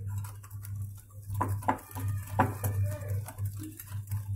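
Hand wire whisk beating flour into a thick cake batter in a bowl: the wires scrape and knock against the bowl in uneven strokes, with a few sharper knocks in the middle. A steady low hum lies underneath.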